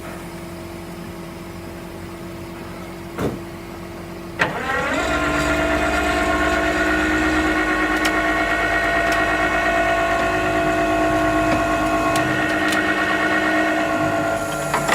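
Truck engine idling, then a sharp clunk about four seconds in, and a steady mechanical whine with several pitches sets in and holds. This is typical of a tow truck's hydraulic pump being engaged to work the bed or winch.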